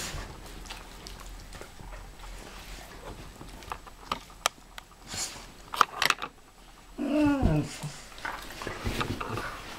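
Dogs playing on a leather sofa: scattered clicks and rustling as they move and mouth at each other, then, about seven seconds in, one dog gives a short whine that falls in pitch.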